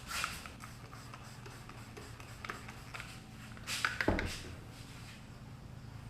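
Hands wiping and rubbing the kayak's hull clean with a cloth before tape goes on, soft rubbing with a louder swish near the start and another about four seconds in.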